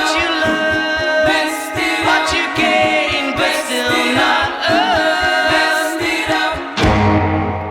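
Alternative pop-rock song outro: layered, choir-like singing without clear words over a steady beat. About seven seconds in, the band hits one final chord that rings out and fades.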